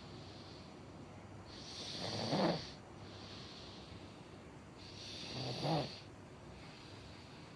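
Snoring in a slow, regular rhythm: two loud snores about three seconds apart, each swelling over about a second to a low, buzzing peak, with softer hissing breaths between them.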